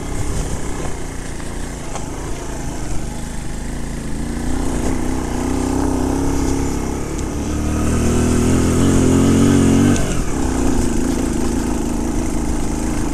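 Suzuki Intruder 125's single-cylinder engine running under throttle on the move, with wind rushing past. The engine note climbs and grows louder from about four seconds in, drops off abruptly about ten seconds in, then runs on steadily.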